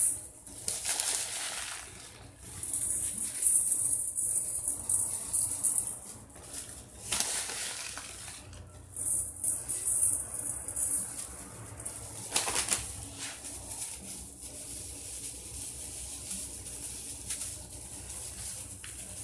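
Small gravel pebbles rattling and shifting in a glass bowl as a gloved hand spreads them, with thin plastic crinkling in patches. The handling stops a few seconds before the end.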